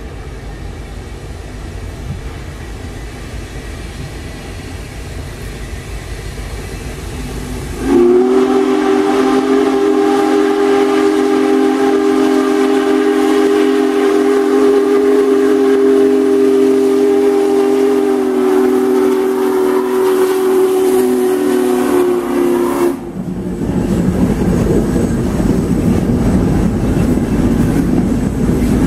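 Union Pacific Big Boy 4014's steam whistle blown in one long chord of several steady tones, held for about fifteen seconds and cut off sharply. Before it the approaching locomotive's rumble grows louder, and after it the train rumbles past.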